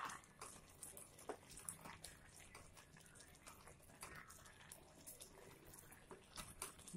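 Near silence: faint scattered ticks over a light hiss from a pot of tomato and drumstick curry simmering, with a ladle stirring it near the end.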